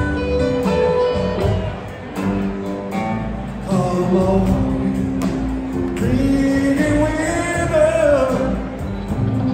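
Live rock band playing on electric guitars, bass, keyboards and drums, with singing over the instruments.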